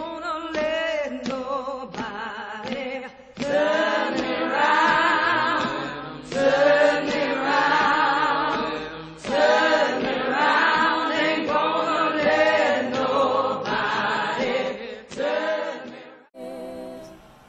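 Choir singing in long held phrases with vibrato.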